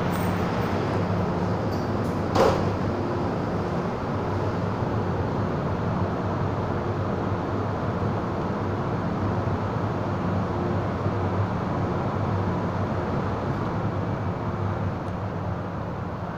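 Steady hum and hiss of a stationary MTR M-Train metro car standing at the platform with its doors open, with a single short knock about two and a half seconds in.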